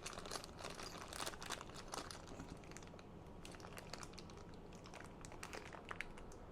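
Faint crinkling of a small bag being handled and opened to get a nozzle out, with scattered small clicks and crackles, busiest in the first two seconds and sparser after.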